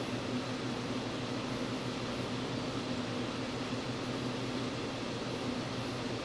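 Steady hum and fan-like hiss of running shop equipment, with a low electrical hum underneath.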